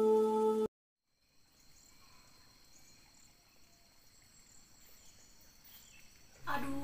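Soft ambient music with held tones stops abruptly under a second in. After a brief silence comes faint rural outdoor ambience with a steady high insect buzz, and guitar music starts near the end.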